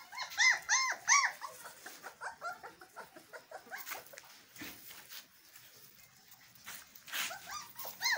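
Bakarwal dog puppies yelping and whimpering in short, high-pitched cries. Three loud yelps come close together in the first second and a half, then a run of softer whimpers, a lull, and more yelps near the end.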